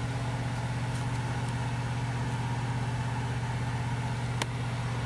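Steady low machine hum that keeps an even pitch, with a single sharp click about four and a half seconds in.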